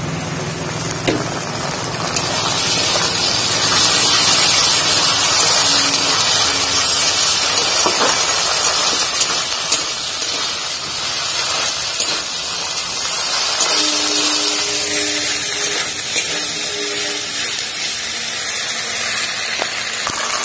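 Onions and garlic frying and sizzling in hot mustard oil in a pan, louder from about two seconds in, with a few sharp clicks.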